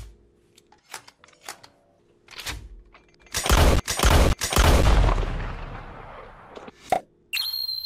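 Dramatic edited sound effects over a low drone: a string of sharp hits, then two loud booms with a long fading rumble, one more hit, and a high steady ringing tone near the end.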